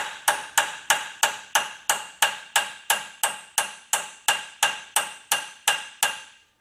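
Hammer tapping a steel punch against the steel hydraulic cylinder of a car lift: a fast, even series of sharp, ringing metallic strikes, about three a second, which stop near the end.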